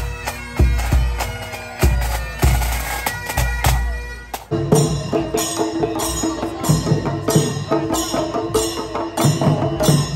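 Pipe band: bagpipes playing a tune over their steady drones, with heavy bass drum beats. About four and a half seconds in the sound cuts abruptly to a street drum band's rhythmic percussion.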